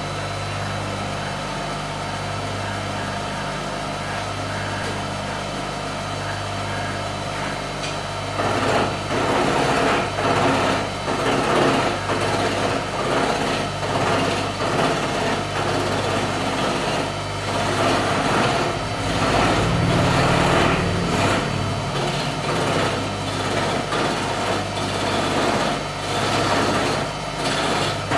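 Electric wood lathe running with a steady hum; from about eight seconds in a hand turning tool cuts the spinning wooden blank, a rough shaving noise that rises and falls as the tool is worked.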